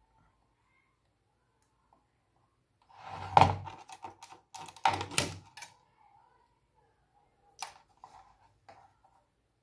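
A quick cluster of sharp clicks and knocks of tools and parts handled on a workbench while capacitors are replaced on a motherboard, loudest about three and a half seconds in, with one more click near the end.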